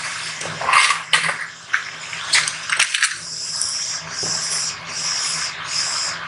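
Cotton fabric pieces being handled on a sewing table: rustling and a few sharp clicks, then a rhythmic swishing of fabric rubbed back and forth, under a low steady hum.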